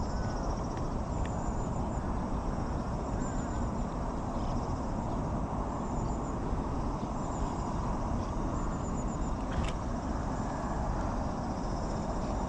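Steady outdoor background rush with short, high-pitched chirping trills about every two seconds, and a single sharp click about ten seconds in.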